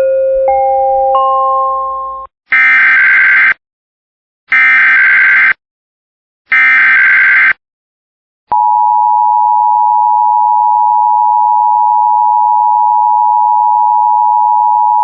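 Emergency Alert System tones opening a new alert: a short rising series of beeps, then the three harsh digital SAME header bursts, each about a second long and a second apart, which encode the alert. About eight and a half seconds in, the steady two-tone EAS attention signal starts and holds, announcing that a voice warning message follows.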